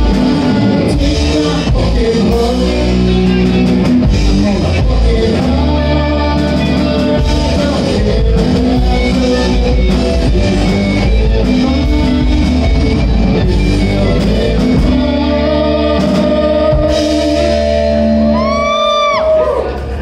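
Live rock band playing with electric guitars, bass guitar, drum kit and singing, on a steady beat. Near the end the drums and bass stop, leaving a held note that bends up and down in pitch.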